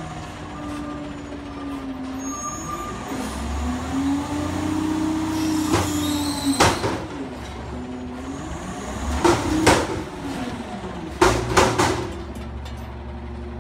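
Front-loading garbage truck running its hydraulics as the arms raise a bin over the cab and tip it: the engine revs up in two stretches while a pump whine rises and falls in pitch. Several sharp metal clanks come about two-thirds of the way in and again near the end, the loudest coming in a quick group of three.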